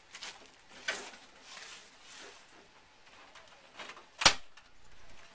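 Things being handled on a workbench: a few soft rustling scrapes, then one sharp knock a little after four seconds in.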